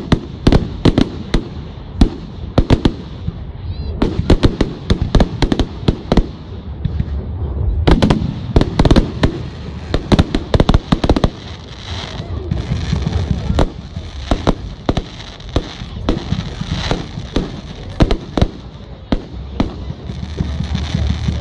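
Fireworks display: aerial shells bursting overhead in a rapid, irregular barrage of sharp bangs that goes on without a break.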